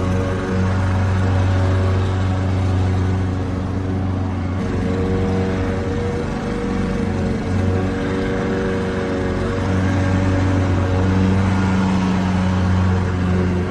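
Lawn mower engine running steadily, its drone wavering slightly around the middle.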